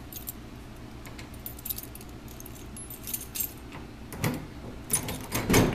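A bunch of keys jangling and clicking at the tool box's lock, with a few heavier knocks near the end.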